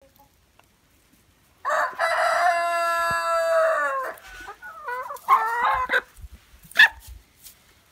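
A rooster crowing: one long crow, held on a steady pitch for about two and a half seconds and dropping at the end, followed by a few shorter wavering chicken calls and a brief sharp call about seven seconds in.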